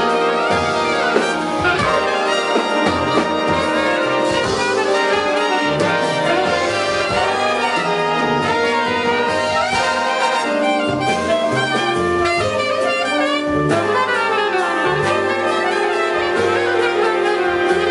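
Big band playing a jazz-fusion piece: trumpets, trombones and saxophones in ensemble over bass and drums, with a long held horn note from about fourteen seconds in.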